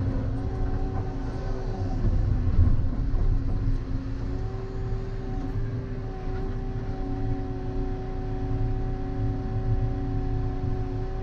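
Volvo excavator's diesel engine and hydraulics running under load, heard from inside the cab: a steady low rumble with a whine that settles to one even pitch about four seconds in.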